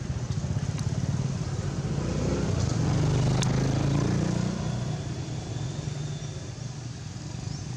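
A motor vehicle engine running with a low rumble that grows louder about halfway through and then fades away, as it passes. A single sharp click about three seconds in.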